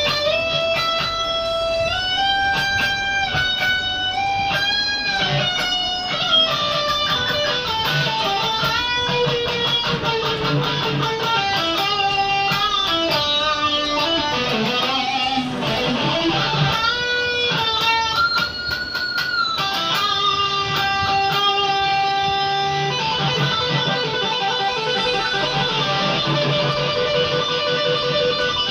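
Custom-built hybrid guitar played through its bridge pickup: a melodic line of held single notes with pitch bends and slides, turning to ringing chords near the end.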